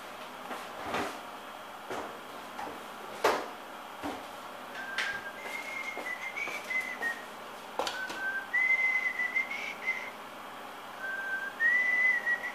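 A person whistling a simple tune in held, stepping notes, starting about five seconds in. A few sharp clicks and knocks come before it, the loudest about three seconds in.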